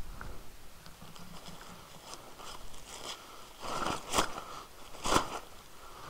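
Wet plastic rain cover being handled and shaken, crinkling and rustling, with two louder crinkles about four and five seconds in.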